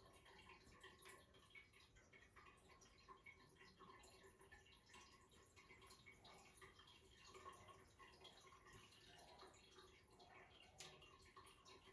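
Near silence: faint room tone with scattered small, soft ticks.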